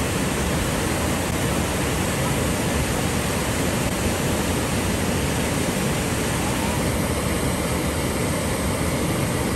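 Steady rushing of fast-flowing water close to the microphone, an even, unbroken roar like a waterfall or rapids.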